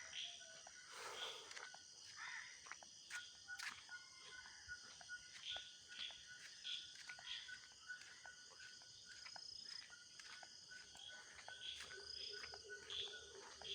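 Faint outdoor nature ambience: insects trilling steadily, with many short chirps scattered throughout.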